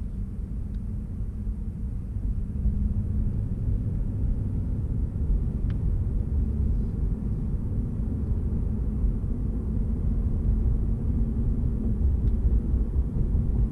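Steady low rumble of tyre and engine noise inside a car cabin on a freeway, with a few faint ticks.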